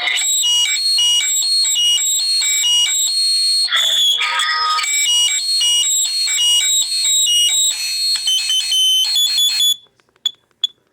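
Voice amplifier squealing with feedback: shrill high tones that jump rapidly from pitch to pitch. It cuts off near the end, leaving short high pips about three a second.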